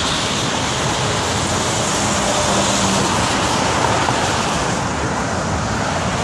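Steady roar of road traffic and wind noise, loud and even, with a faint low hum for about a second in the middle.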